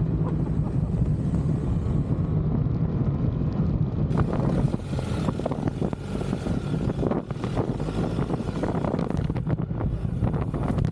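BMW R1300GS boxer-twin engine running under way off-road, with wind buffeting the microphone. From about four seconds in, the sound turns rougher with repeated knocks and rattles.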